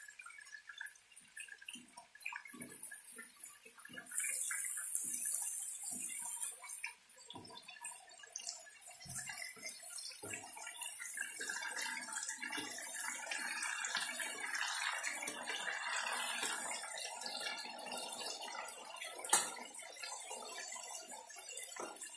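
Chicken pieces and potatoes simmering in a pan of liquid: a busy patter of bubbling and light sizzling, with one sharp click near the end.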